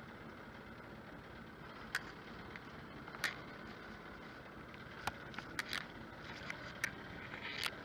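Steady background noise of a small fishing boat at sea, broken by a handful of short sharp clicks and knocks as the rail-mounted electric fishing reel and its metal bracket are handled.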